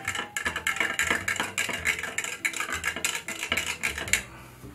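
Metal bar spoon stirring quickly in a glass rocks glass, clinking rapidly against the glass as butter and spice are stirred into hot water, over faint background music. The clinking stops about four seconds in.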